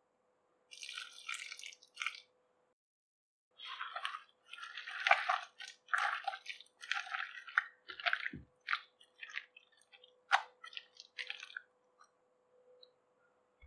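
A hand squeezing and mixing a thick, wet batter of sliced onions, gram flour and idli batter in a bowl: irregular sticky squishes, with a short break about three seconds in.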